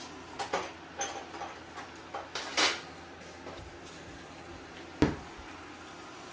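Water droplets running down a hot earthenware pot on a portable gas stove, sizzling away in a series of short hisses and crackles, the sign that the steamed egg inside is done. A single sharp knock about five seconds in, over a steady low burner hiss.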